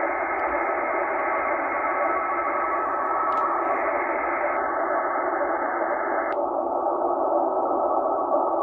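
Shortwave radio static hissing from a Tecsun H-501X receiver's speaker in upper sideband, a weak marine data signal buried in the noise. The hiss turns duller in two steps, about four and a half and six and a half seconds in, as the receiver's filter bandwidth is narrowed from 3.0 kHz toward 1.2 kHz.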